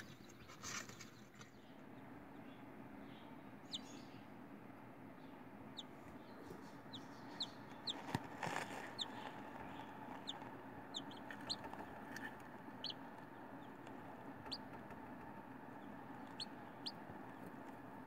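Newly hatching chicks peeping: short, high, single chirps spaced irregularly, over a faint steady hum. A brief rustle about eight seconds in.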